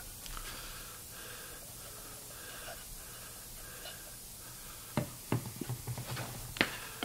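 Quiet squeezing of a plastic bottle of wood glue onto a rabbet joint, followed by a few sharp knocks from about five seconds in as the bottle is set down on the workbench and the oak piece is handled, the loudest about six and a half seconds in.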